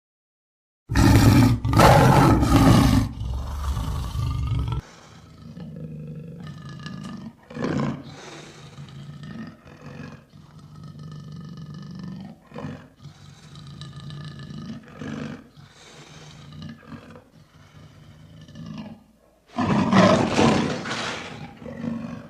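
Big cat roaring: loud roars start about a second in, then a long stretch of quieter growling broken by short grunts, and another loud roar near the end.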